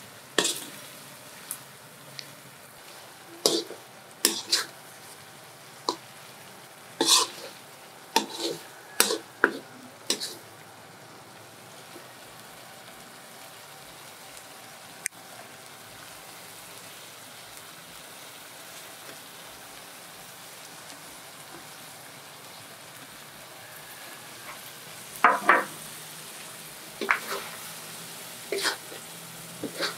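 Metal spatula scraping and clanking in a wok while prawn curry fries with a steady sizzle. Scrapes come in a quick run over the first ten seconds, stop for a long stretch of plain sizzling, then start again near the end as greens are tossed in.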